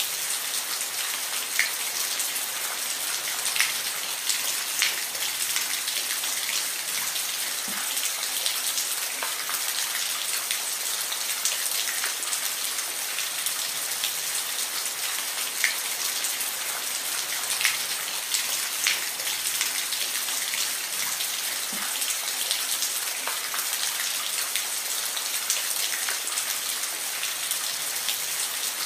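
Steady rainfall: a continuous hiss of rain with individual drops ticking sharply on a surface now and then.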